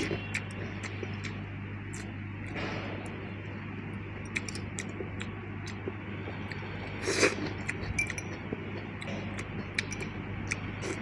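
Chopsticks clicking and clinking against a ceramic bowl while someone eats, with a steady low hum underneath.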